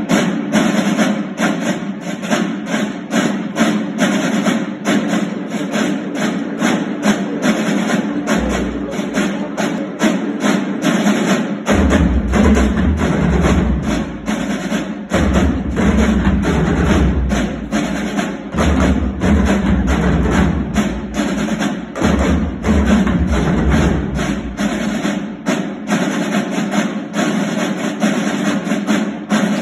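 Marching drumline playing a fast, dense snare-drum cadence, with many quick strokes throughout. Deep low booms join in through the middle stretch and drop away near the end.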